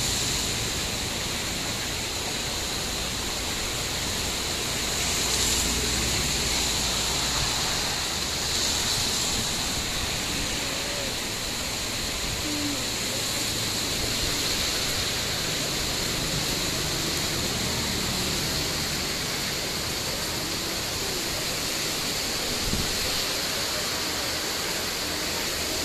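Heavy rain and strong wind making a steady rushing hiss, swelling louder in gusts a couple of times.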